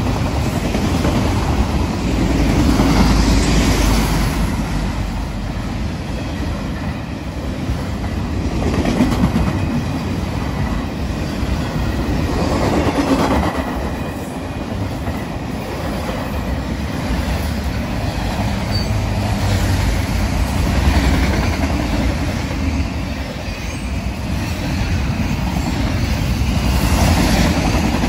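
Freight train of autorack cars rolling past at speed: steady rumble and clatter of steel wheels on the rails, swelling and easing every few seconds as the cars go by.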